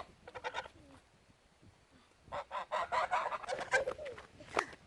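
Domestic geese honking in rapid runs of short calls, about five a second. The honking stops for a second or so, then starts again.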